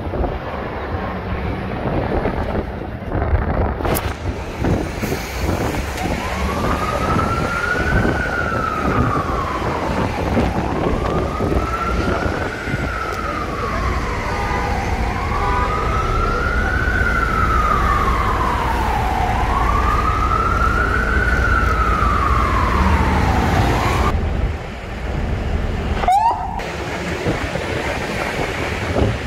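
Emergency vehicle siren wailing in four slow rising-and-falling sweeps, starting several seconds in and stopping a few seconds before the end. It sounds over a steady low traffic rumble and wind on the microphone from the open top deck of a moving bus.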